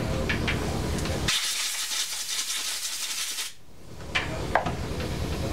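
Compressed air from a blow gun on a coiled shop air hose, one steady hiss of about two seconds starting just over a second in, blowing sanding grit off a carburetor float bowl. Two light clicks follow near the end.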